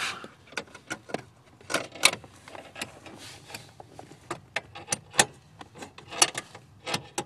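Irregular light clicks and knocks, handling noise as the camera and hands are worked in close to the dashboard.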